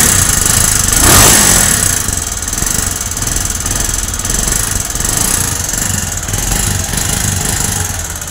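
Bajaj Avenger 220's single-cylinder engine running just after an electric start, briefly louder about a second in, then settling to a steady idle. It runs with a rough, tractor-like clatter, as if pebbles were rattling inside, which the mechanic puts down to a badly worn engine that has lost compression.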